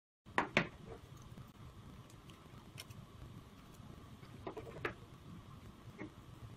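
Light clicks and taps of small plastic parts being handled on a desk: a USB power adapter, its cable and the fisheye camera's housing. After a moment of dead silence, two sharp clicks come first, then a few scattered ones, with a close pair near the five-second mark, over faint room hiss.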